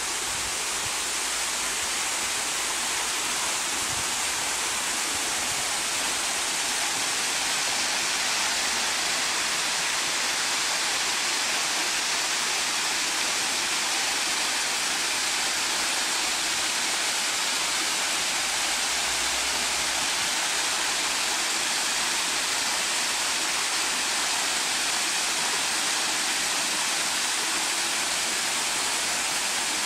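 Small man-made waterfall pouring down tiers of stacked stone into a garden pond: a steady, even rush of splashing water.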